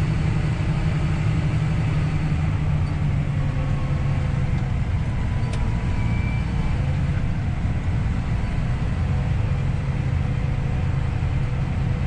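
Steady low rumble of a tractor engine pulling a grain cart, with the combine running alongside, heard from inside the tractor cab.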